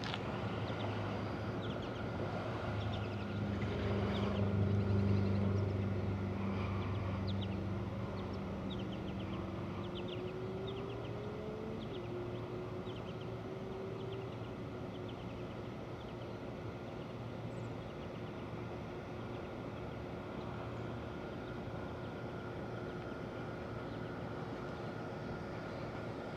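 A motor vehicle passing, its low engine hum swelling to a peak about four to six seconds in and then fading into steady distant traffic noise. Short high bird chirps are heard in the first half.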